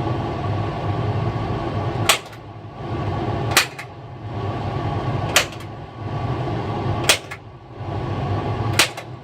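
Cordless drill drilling out aircraft panel rivets in short runs. Each run ends in a sharp click, five in all, after which the drill eases off. The rivets behave like pulled blind rivets, their centres dropping out.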